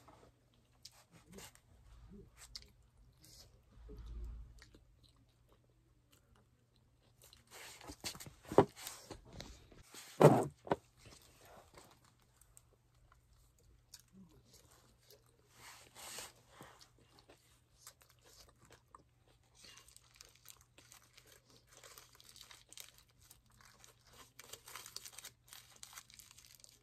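People chewing and biting into chicken rolls, with crunching and rustling of the foil wrapping. Two loud knocks stand out about eight and ten seconds in.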